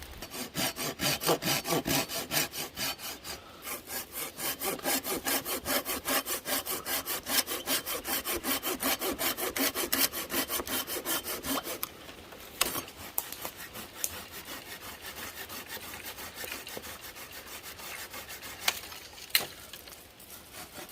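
A hand saw cutting through a dead, fallen yew branch with rapid, even back-and-forth strokes; after about twelve seconds the strokes turn fainter and lighter.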